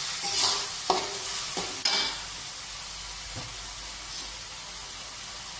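Chopped tomatoes and chillies sizzling in an aluminium wok while a metal spatula scrapes and stirs them, with several sharp scraping strokes in the first two seconds; the sizzle then goes on more evenly and a little quieter.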